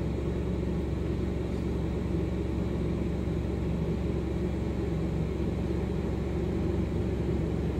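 Steady low drone of a semi truck's idling diesel engine heard from inside the cab, even and unchanging.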